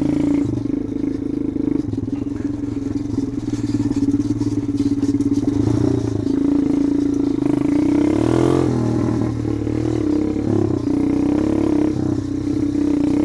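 Kayo pit bike engine running loud and steady while riding a rough dirt trail, through what is apparently a straight-through silencer. The revs briefly rise and fall about two-thirds of the way through.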